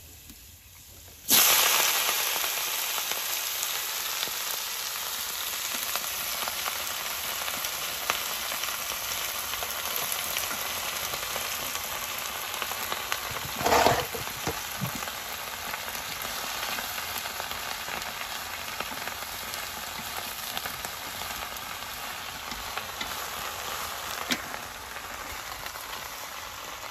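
Garlic frying in oil in a wok, with a sizzle that starts suddenly about a second in and carries on steadily. About halfway through there is a short, louder burst as shredded cabbage and mustard greens go into the wok, then the frying settles back to a steady sizzle.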